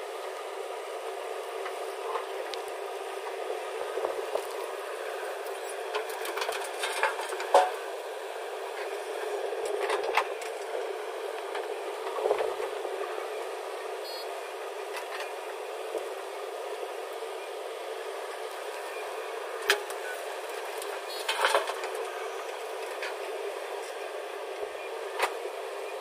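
JCB 3DX backhoe loader at work: a steady engine drone with scattered knocks and clatters, the sharpest about seven and a half seconds in.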